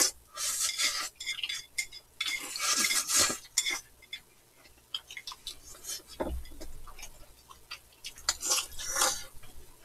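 Noodles slurped in several short, hissing bursts, with chopsticks and spoons clicking and clinking against the bowls between them.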